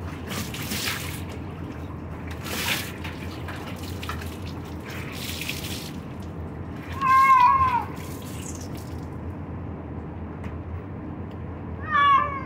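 Water poured and splashed over a wet cat in a bathtub in three short gushes, then the cat meows loudly twice: one long falling meow about seven seconds in and a shorter one near the end.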